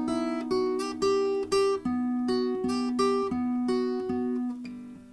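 Background music: a slow plucked-string melody, sounding like acoustic guitar, over a held lower note. It dies away near the end.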